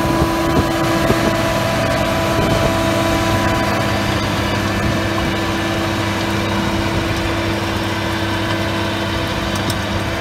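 Same Audax 220 tractor's diesel engine running steadily at constant speed while it pulls a power harrow through dry soil.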